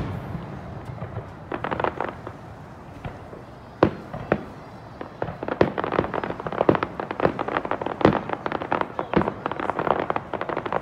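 Aerial fireworks display: shells bursting with sharp bangs, and a dense run of rapid pops and crackles that thickens from about five seconds in.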